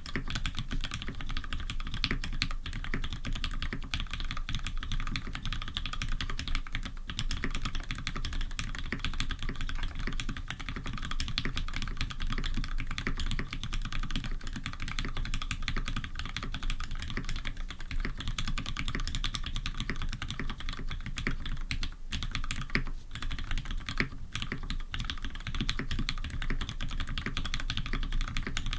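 Steady fast typing on a Tx87v1 custom mechanical keyboard with Cherry Retooled Black linear switches (Krytox 105 lube, Sprit Extreme II 65 g springs) on a brass plate under GMK Olivia keycaps. It is a dense, unbroken run of key clacks, recorded with no effects.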